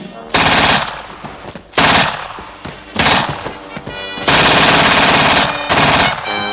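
Drum-fed submachine gun firing in five bursts of automatic fire, the longest lasting over a second, about four seconds in.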